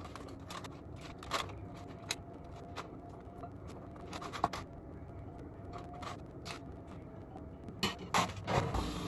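Soft scrapes and light clicks of a pastry brush spreading egg yolk over a rolled lavash strudel, the brush tapping now and then against a small metal bowl. A few louder knocks near the end.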